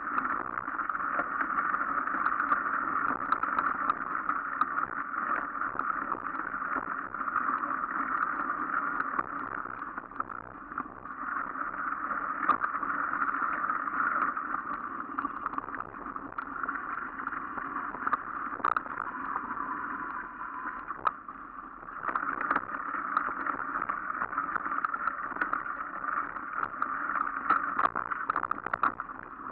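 Mountain bike rolling along a dirt forest trail: a steady rush of tyre and wind noise with scattered knocks and rattles from bumps. It eases off briefly twice.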